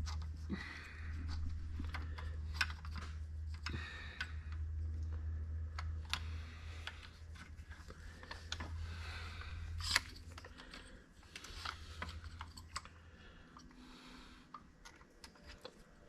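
Scattered light clicks and taps of hand tools and parts being handled, over a steady low hum that stops about ten seconds in.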